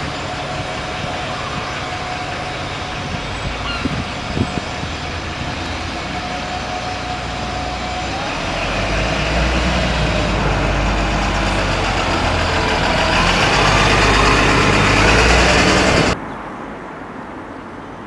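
Single-deck diesel bus engine running, with a steady tone over the engine at first, then pulling away and passing close, its low engine rumble building to its loudest. The sound cuts off sharply near the end, leaving quieter wind noise on the microphone.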